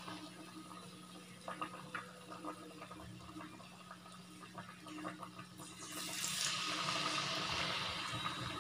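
Batter-coated banana fritters (pazham pori) sizzling as they deep-fry in hot oil, the sizzle growing louder and brighter about six seconds in. A few light clicks come near two seconds in.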